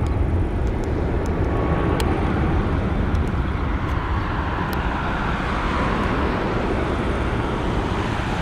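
Airbus KC2 Voyager's twin Rolls-Royce Trent 700 turbofans at take-off and climb thrust as the jet climbs away, heard as a steady jet rumble, heaviest in the low end.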